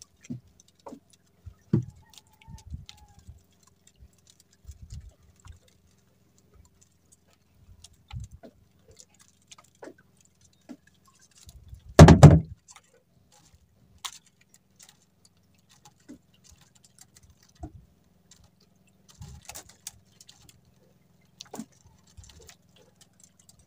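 Scattered light clicks and knocks, with one loud thump about halfway through.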